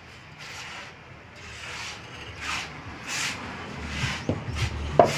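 Repeated rough scraping or rubbing strokes, about one a second, with a sharp knock near the end.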